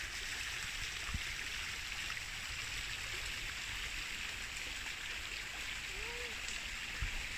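Steady rushing of flowing river water. A short voiced sound about six seconds in.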